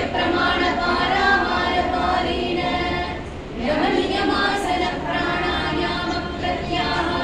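Women's voices singing a devotional hymn to the guru without instruments, in long held notes with a short break about three seconds in.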